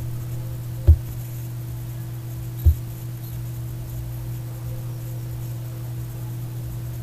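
Steady low hum in the recording, with two brief low thumps, one about a second in and one near three seconds in.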